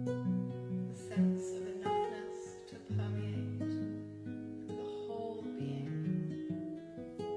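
Instrumental music led by a plucked and strummed acoustic guitar, with notes changing every second or so.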